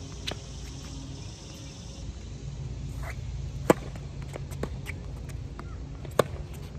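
Tennis rally: a sharp, loud pop of a racket striking the ball on the serve about halfway through, fainter pops from the ball bouncing and being returned, then another loud racket hit near the end.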